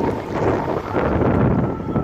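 Wind buffeting the microphone over the low rumble of street traffic, with a fire engine driving off.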